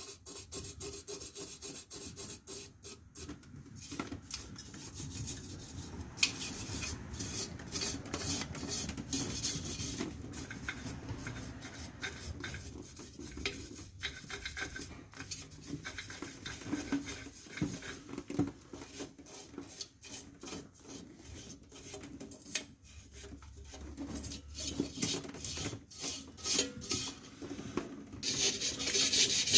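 Steel wire brush scrubbing the rear drum brake parts by hand, in rapid, irregular scraping strokes that get louder near the end.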